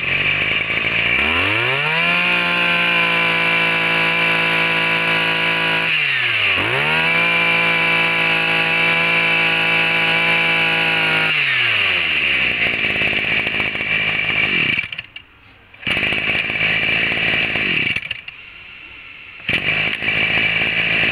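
Makita MEM264 26cc two-stroke brush cutter engine revving up to full throttle and holding a steady high pitch. It dips briefly about six seconds in and revs back up, drops to idle when the throttle is let go around eleven seconds, and cuts out about fifteen seconds in. Further bursts of engine noise follow near the end.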